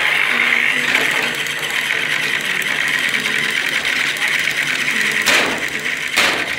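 Small electric motors of battery-powered toy train engines whirring steadily as two engines push head to head against each other. Two sharp knocks come about five and six seconds in.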